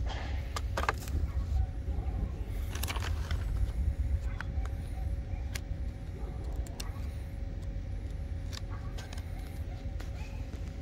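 Scattered clicks and rattles of hard plastic as a Ryobi Reel Easy+ string trimmer head is twisted apart and its line spool pulled out, over a steady low rumble.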